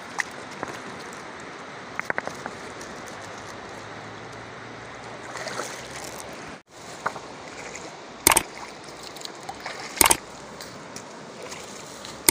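Steady rushing of a river or stream, with scattered clicks of sandalled footsteps on river stones. Two sharp loud knocks stand out, one about two-thirds of the way in and another about two seconds later.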